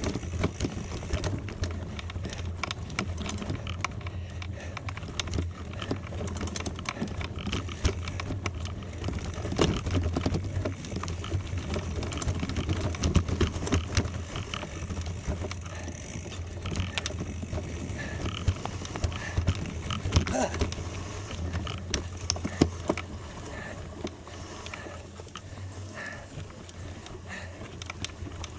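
Gravel bicycle rolling over a gravel road: tyres crunching, with frequent rattling clicks over a steady low rumble.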